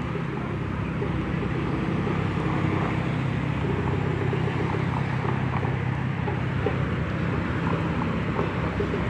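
A car driving along a street: a steady low engine hum with tyre and road noise.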